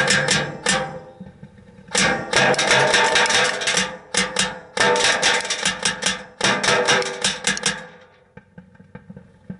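Airsoft BBs from a fully automatic airsoft rifle striking the plexiglass shield of a target right in front of the microphone, a fast rattle of hits in bursts. One burst ends about a second in, a long burst follows, then a short one and another long one, before it falls quiet near the end.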